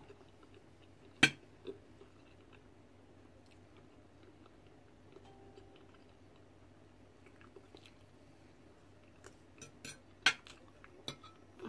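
A fork clinking against a plate: one sharp clink about a second in and a few more near the end, with quiet chewing in between.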